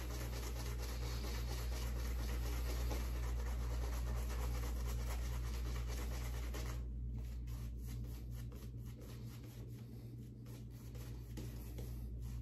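Badger-hair shaving brush working soap lather on the face, a steady soft brushing and rubbing over skin and stubble that builds the lather. It turns softer about seven seconds in, with lighter scattered strokes.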